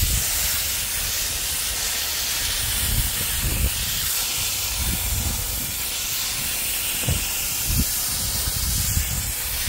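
Coil-cleaning spray gun on a garden hose spraying a jet into the dirty outdoor coil fins of a Trane gas package unit: a steady hiss.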